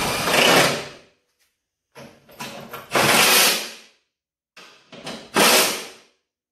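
A cordless impact driver with a socket runs in three bursts of about a second each, driving the seat-spring bolts down into the mower's fender.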